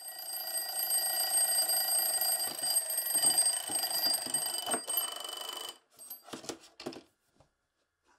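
Mechanical bell alarm clock ringing steadily while a hand fumbles at it with a few knocks. The ringing cuts off about six seconds in, and a few clattering knocks follow as the clock tips onto its side.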